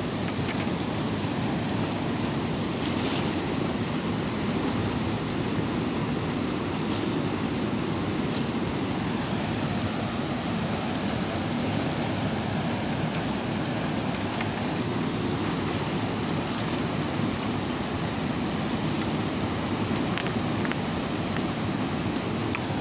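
Fast-flowing river water rushing steadily over rocks, with a few faint ticks.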